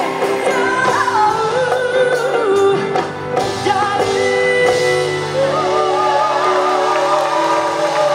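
A woman singing live into a handheld microphone over band accompaniment, the melody wavering and then settling into longer held notes in the second half.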